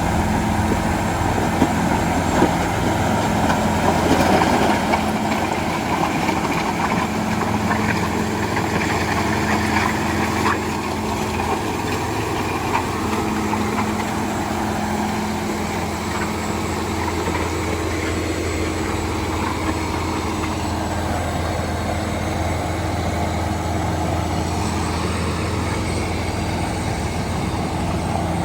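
A heavy construction-machine engine runs steadily, with a few sharp knocks in the first half. It settles slightly quieter about ten seconds in.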